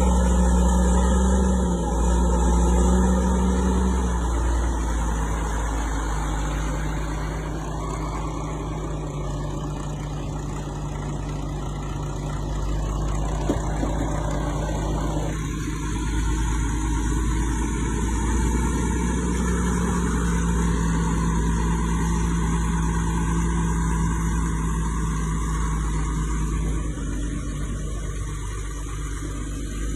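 Fiat 180-90 Turbo DT tractor's turbodiesel engine running steadily under work. Its note drops slightly about four seconds in and rises again about two-thirds of the way through.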